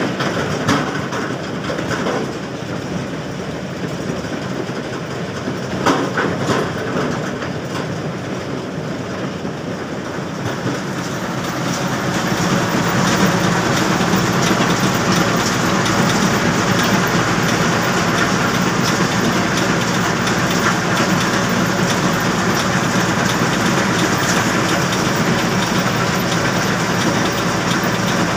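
Iron-ore rock from an excavator bucket clattering into a mobile crusher's vibrating feeder, with a few sharp impacts. About twelve seconds in, this gives way to the louder, steady running of the mobile crushing and screening plant, a dense rattle over a low drone.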